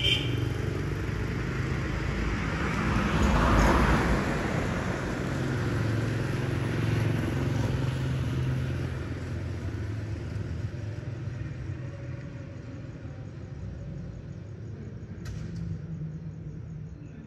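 Motor vehicle engine running: a low hum that swells about three to four seconds in, then slowly fades away.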